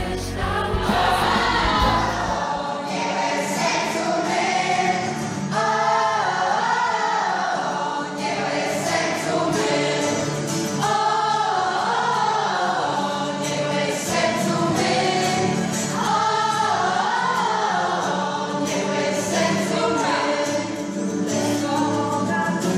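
A group of children and adults singing a Christian action song together, many voices on one tune.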